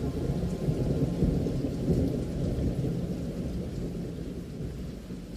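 Low rolling thunder over rain, swelling in the first two seconds and then slowly fading away.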